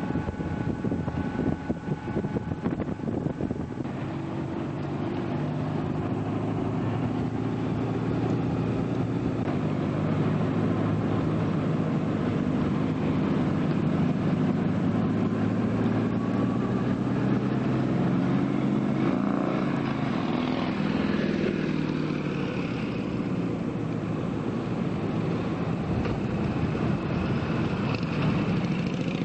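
Motorcycle engine running while riding, with wind rushing over the microphone for the first few seconds. The engine note shifts in pitch about two-thirds of the way through as the speed changes.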